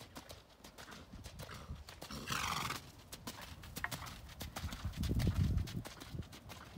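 Hoofbeats of a horse cantering and trotting on gravel arena footing, a steady run of dull strikes. About two and a half seconds in the horse gives a brief loud blow, and a low rumble rises around five seconds in.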